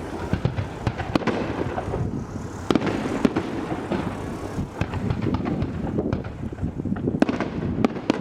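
Fireworks display: a dense, irregular run of sharp cracks and bangs over a continuous rumble of shell bursts.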